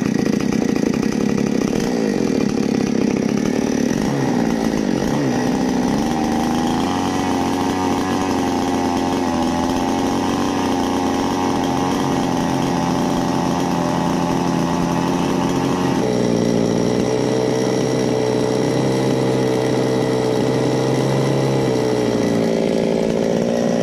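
Petrol two-stroke chainsaw running at high revs, steady throughout, with an abrupt change in tone about sixteen seconds in. It is being run to test that the repaired chain-oil pump now delivers oil to the chain.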